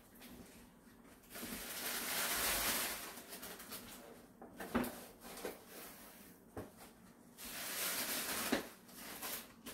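A cat litter box being cleaned out by hand: scraping and rustling of litter, in two longer bursts about a second in and again about seven seconds in, with a few light knocks between.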